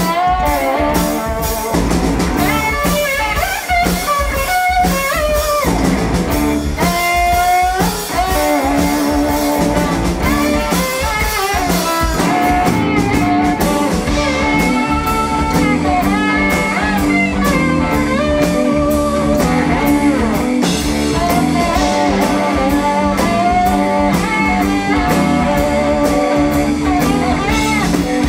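Live blues-rock band playing an instrumental passage: electric guitar lead lines with bending notes, over bass guitar and a drum kit keeping a steady beat.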